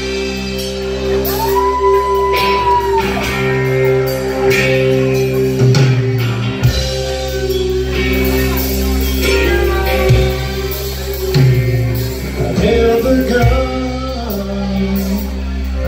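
Live country band playing a song's instrumental intro, with guitars over long held low notes and chords, in a large room.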